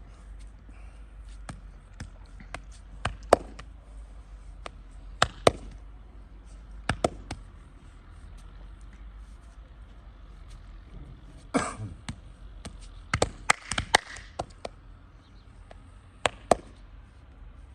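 Vigorous head, neck and back massage: a scattered series of sharp smacks and cracks, several coming in quick pairs and a quick cluster about two-thirds of the way through, over a steady low hum.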